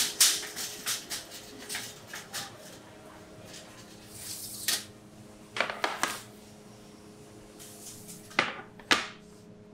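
Metal baking trays clattering against a stainless steel bakery rack as they are handled and set down: a quick run of sharp clicks at the start, then a few separate clanks, over a steady hum.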